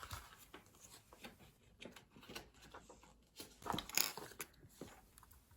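Scattered soft clicks and taps from a low-noise (silent) keyboard being handled and its keys pressed, with a cluster of louder clicks a little past the middle.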